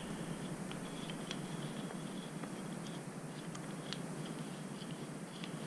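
Faint, scattered light clicks of small metal mounting hardware being handled, a screw being turned in by hand, over a steady low room hum.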